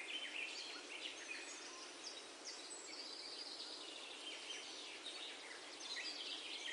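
Faint birds chirping, many short calls, over a steady background hiss.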